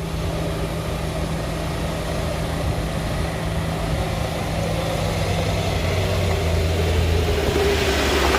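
Heavy truck diesel engine running under load on a steep climb, a low steady note that grows louder over the last few seconds as it comes closer.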